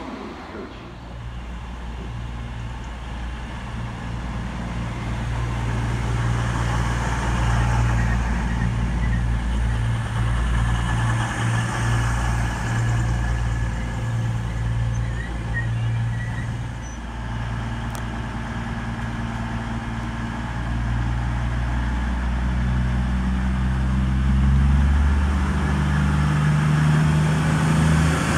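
Diesel train engine running steadily and slowly getting louder, its engine note rising in the last few seconds as it works harder.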